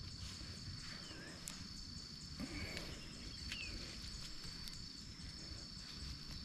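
A steady high-pitched insect trill goes on unbroken, over a low outdoor rumble. A few faint ticks and a couple of short chirps come through.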